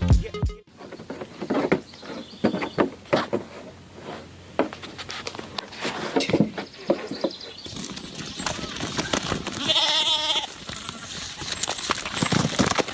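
A goat-like bleat, one wavering call about ten seconds in, among scattered knocks and clatter.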